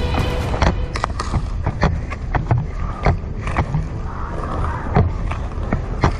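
Walking footsteps: irregular knocks about three a second over a steady low rumble on the microphone.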